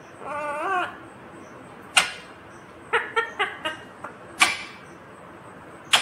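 Rose-ringed parakeets calling: a short warbling call in the first second, then sharp, piercing squawks about two, four and a half and six seconds in, with a quick run of short chirps around three seconds in.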